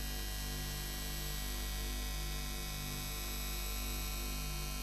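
Steady electrical mains hum and buzz, a low drone with a thin layer of fixed high tones above it.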